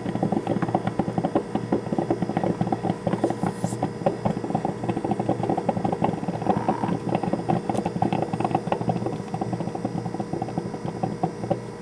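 Black & Decker drip coffee maker gurgling and sputtering as it pushes the last of the water through at the end of its brew cycle: a fast, irregular crackle of pops that thins out and quietens near the end.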